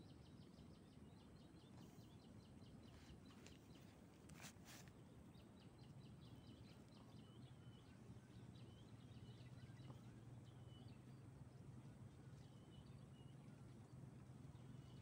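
Faint outdoor ambience of small birds chirping and trilling again and again, with a low steady hum coming in about six seconds in and two brief clicks about four and a half seconds in.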